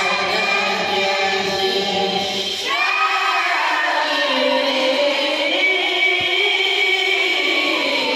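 Quran recitation in the melodic tilawah style, several young voices chanting together in long drawn-out phrases. One phrase ends and a new one begins with a rising note about three seconds in.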